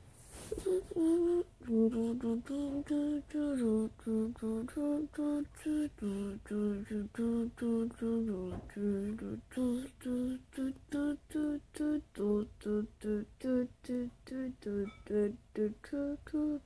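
A person humming a tune in short separate notes, starting about half a second in and coming a little faster in the second half.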